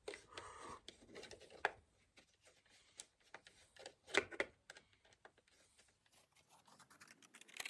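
Faint handling clicks and scrapes as an electrical wall socket's faceplate is unfastened and lifted off its metal back box, with two sharper clicks about two and four seconds in.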